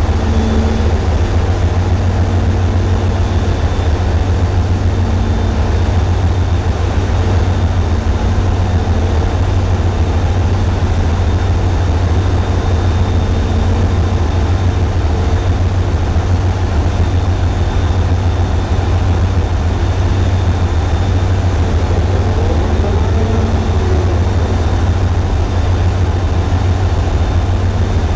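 Tugboat's diesel engines running steadily under load, heard as a loud, even low drone with a steady hum above it. The sound is distorted by heavy vibration of the camera mount.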